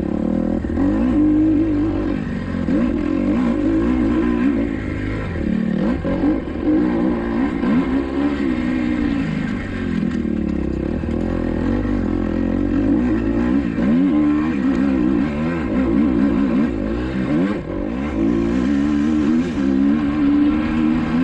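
Kawasaki KX250XC dirt bike's engine being ridden hard, revving up and dropping back again and again as the throttle is opened and closed.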